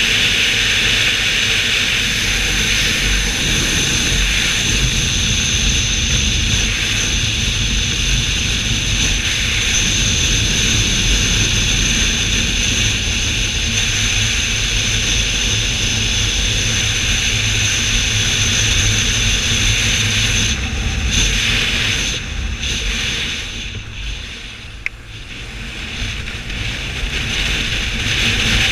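Riding on a BMW R1200: loud, steady wind rush over the bike-mounted camera's microphone with the boxer-twin engine and road noise underneath. It eases off for a few seconds a little past twenty seconds in, then builds again.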